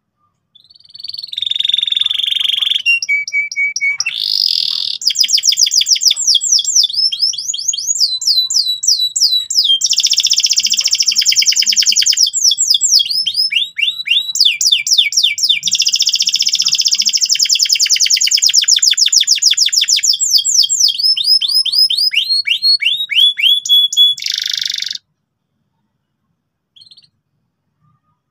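Domestic canary singing a long, loud song of fast repeated trills made of rapid falling notes, which stops abruptly about 25 seconds in; one brief chirp follows.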